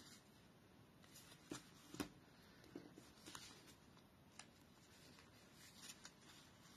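Faint handling of card stock: soft rustles and a few small clicks and taps, the sharpest about two seconds in, as a glued paper pocket is folded and pressed by hand.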